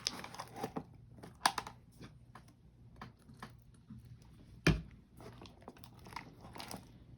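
Homemade glue-and-activator slime being squeezed and kneaded by hand, making irregular sticky squelches and crackles. A single thump stands out a little before five seconds.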